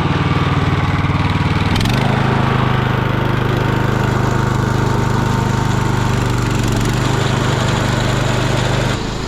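Engine running steadily just after being started. Its speed steps up slightly about two seconds in, and it eases off near the end.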